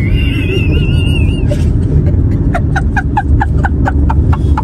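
Steady low rumble of a moving car, heard from inside the cabin. A thin wavering high tone sounds for the first second and a half, and after that a man laughs hard in quick rapid pulses.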